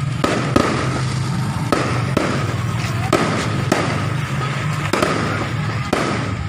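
Fireworks going off: irregular sharp bangs, often several a second, over continuous crackling.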